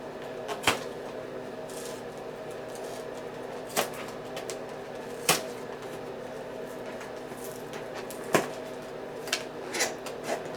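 A stubborn product box being worked open by hand: a handful of sharp clicks and knocks a second or more apart, with smaller ones near the end, over a steady low hum.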